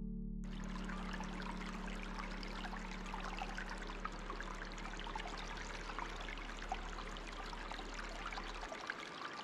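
Water flowing and trickling steadily, starting about half a second in, over a low steady drone that stops near the end.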